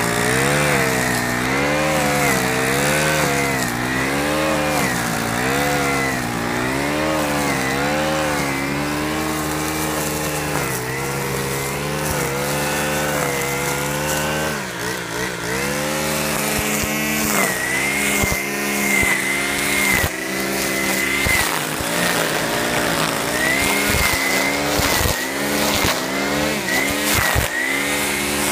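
Stihl FS 90 R string trimmer's small 4-MIX engine running at high speed while cutting grass, its pitch wavering up and down about once a second. About halfway through the pitch drops briefly, then it runs steadier.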